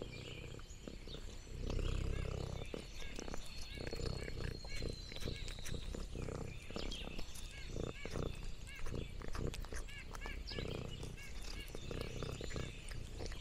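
Orange tabby cat eating food from a hand close to the microphone: irregular chewing, biting and clicking sounds, with a louder low thud about two seconds in.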